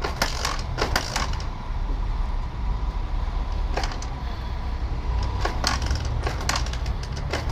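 Sharp clicks and knocks from a Yamaha YBR125 motorcycle being handled during a check for why it won't start or run properly, scattered over a steady low rumble.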